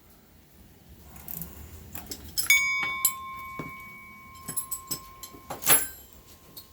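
Metal-on-metal clinks and clatter from hand tools and engine parts being handled. A strike about two and a half seconds in leaves a metal part ringing at one steady pitch for about three seconds, and a sharper clank comes near the end.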